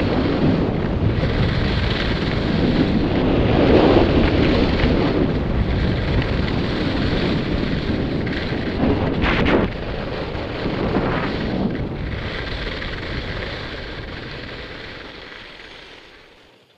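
Wind buffeting a helmet-mounted camera's microphone, with the hiss and scrape of skis on firm groomed snow, during a fast downhill ski run. It grows louder in a couple of surges and then fades away near the end as the skier slows to a stop.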